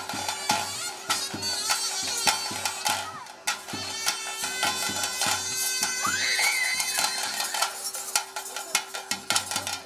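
Temple ritual music: a nagaswara (double-reed pipe) plays a wavering melody over a steady drone, with drums beating a regular rhythm that thins out in the middle and picks up again near the end.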